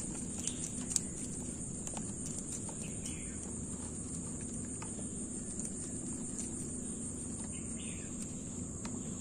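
Scattered light clicks and rattles of a collapsible nylon-mesh umbrella fish trap being handled over a bucket, with a sharper click about a second in, over a steady high-pitched drone and a low hum.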